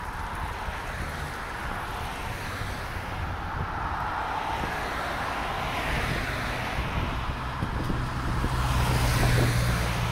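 Road traffic with motor vehicles going by, over wind rumbling on the microphone. A vehicle's engine hum comes in about two-thirds of the way through and is loudest near the end.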